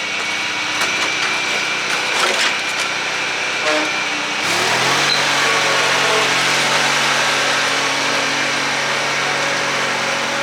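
Honda riding mower's engine running, throttled up about four and a half seconds in, its pitch rising and then holding steady at the higher speed.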